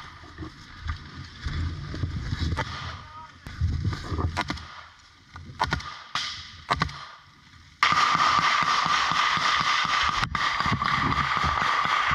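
Scattered sharp gunshots over a low rumble. About eight seconds in, it switches suddenly to sustained, loud automatic fire from a belt-fed machine gun close by.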